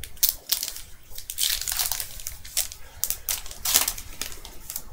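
Foil wrapper of a 2012 Allen & Ginter baseball card pack crinkling and tearing as it is opened by hand. It makes a run of irregular, sharp crackles.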